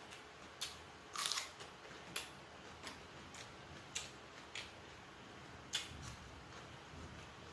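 Close-up eating sounds: a person chewing and crunching food, with a string of sharp mouth clicks and crackles, the loudest cluster about a second in.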